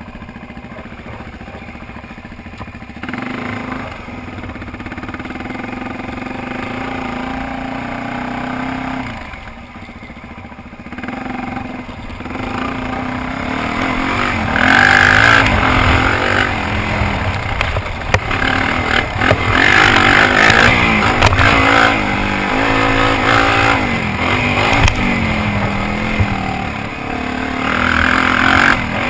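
Suzuki DR-Z400's single-cylinder four-stroke engine, steady at first, then revving up and down again and again as the bike is ridden around a dirt motocross track, its pitch rising and falling with throttle and gear changes.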